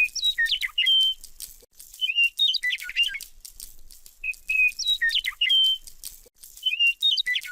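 A looped electronic bird-chirp sound: one short phrase of whistled chirps and trills repeats identically about every two and a quarter seconds.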